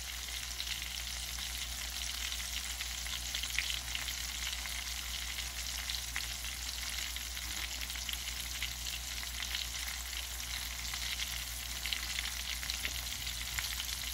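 Flour-dredged fish fillets frying in hot oil in a nonstick skillet: a steady sizzle with scattered small crackles and pops.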